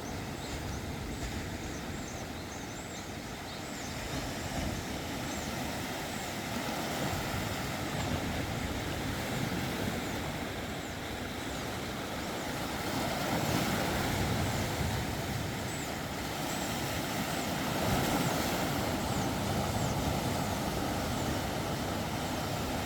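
Sea waves washing on the shore: a steady rushing wash that swells twice in the second half, with faint high chirps in the first few seconds.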